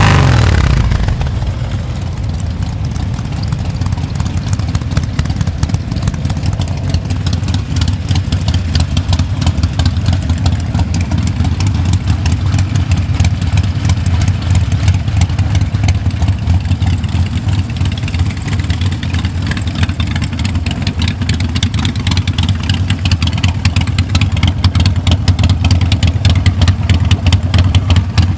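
Harley-Davidson V-twin motorcycle engine with an aftermarket exhaust idling, its firing pulses coming fast and even. It settles down from a louder rev in the first second or two, then holds a steady idle that grows a little louder near the end.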